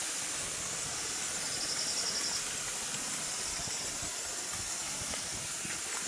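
Steady outdoor background hiss, with a faint, high, evenly pulsing trill about a second and a half in and again around three seconds.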